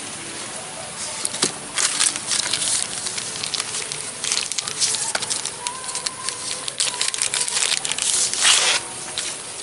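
Hatchet edge being stropped: a run of irregular scraping strokes of the blade, some short and some drawn out, coming in clusters.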